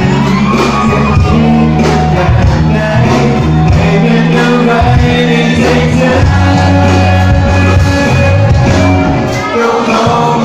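Live band playing a pop-rock song with a lead singer, loud through the hall's PA, with heavy bass, heard from among the audience.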